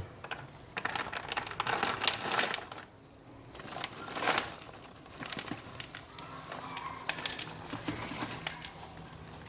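Freshly microwave-popped popcorn being handled in its bowl, with irregular crinkling and rustling and many small light clicks, busiest in the first few seconds and quieter in the second half.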